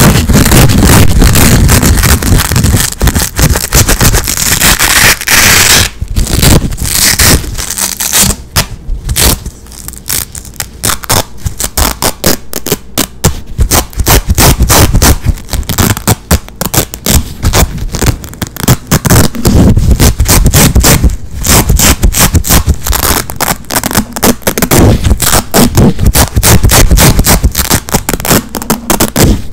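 Hook-and-loop (Velcro) straps being ripped apart over and over right against a microphone, giving loud tearing crackles. The rips are long and continuous for the first several seconds, then come as many short, quick rips.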